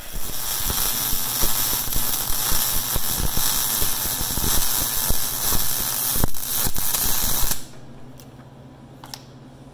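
Electric arc welding: the arc crackles and sputters steadily for about seven and a half seconds, then cuts off as the welder stops. A steady low hum remains after it.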